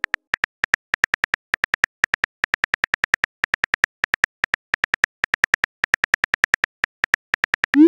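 Keyboard click sounds of a texting app, one short tick per letter at a quick, uneven pace of about six a second, as a message is typed; at the very end a rising swoosh begins as the message is sent.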